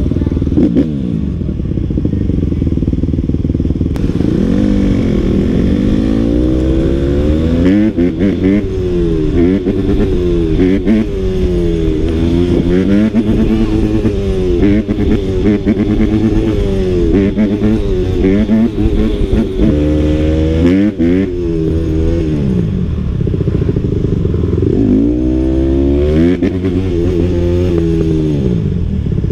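Dirt bike engine being ridden hard, its revs climbing and dropping back again and again over a steady low rumble.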